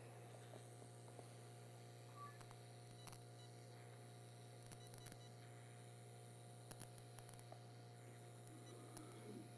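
Near silence: a steady low hum with a few faint clicks.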